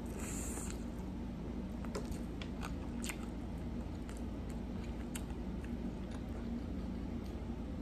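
A crunchy bite into a sauce-covered fried chicken drumstick in the first second, then close-up chewing with scattered small wet clicks.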